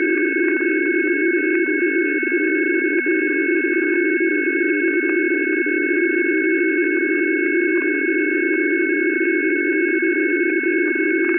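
Shortwave radio receiver output: a steady band of low noise with several constant high whistling tones on top, unchanging throughout.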